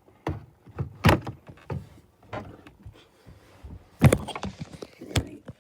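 A handful of sharp clicks and knocks from handling a plastic smoke alarm unit while it is being set up and plugged in, with no alarm sounding. The loudest come about a second in and around four seconds in.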